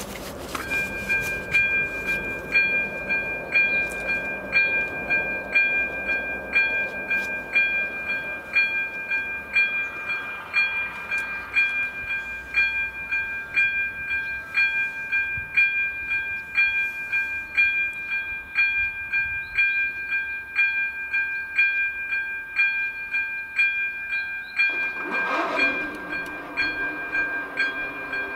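Level crossing warning bell ringing at the AŽD 97 warning lights: an electronic ding struck over and over, a little more than once a second, with a steady high ring held between strikes. Near the end a short, louder whooshing sound with a rising pitch comes in as the barrier arms begin to lower.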